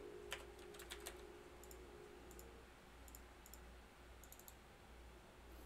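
Faint, scattered clicks at a computer, some in quick clusters, as two trades are entered on a trading platform, over a low steady hum.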